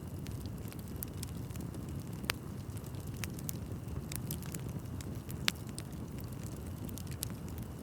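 Wood bonfire burning with a steady low rumble of flame and frequent sharp crackles and pops from the burning wood. Two pops stand out, at about two and five and a half seconds in.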